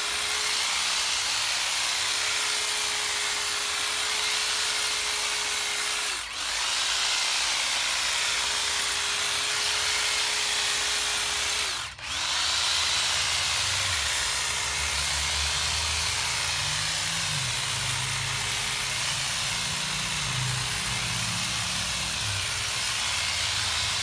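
Hand-held electric hedge trimmer running with a steady motor whine as its blades clip a hedge. It cuts out briefly twice, about six and twelve seconds in, and spins back up each time.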